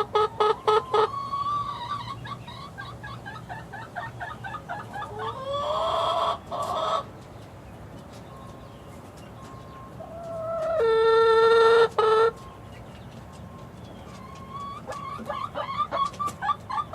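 Six-week-old chicks peeping and chirping: a quick run of repeated peeps at the start and again near the end, softer chirps between, and two louder drawn-out calls, the longer one held for about two seconds near the middle.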